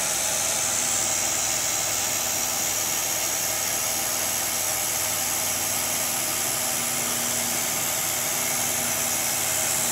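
Steady hiss of coolant spraying from the nozzle of a CNC milling machine, over the machine's low running hum; a faint steady tone grows stronger about halfway through.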